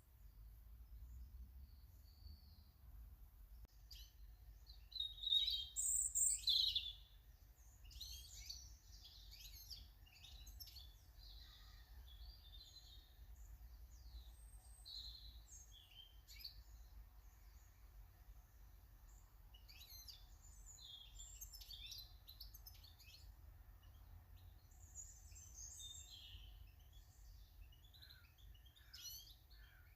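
Small garden songbirds calling and chirping in quick, irregular notes, with a louder flurry of chirps about five seconds in.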